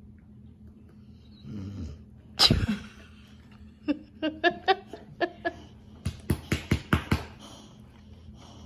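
Cane Corso making nasal breathing sounds and grunts as it chews a stuffed toy. There is one loud burst about two and a half seconds in, then a string of short grunts, and a quicker run of sharp puffs about six seconds in.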